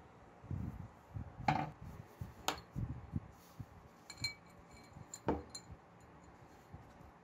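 Black-lacquered metal lamp parts handled on a workbench: a few light knocks and clicks, and a short ringing metallic clink about four seconds in.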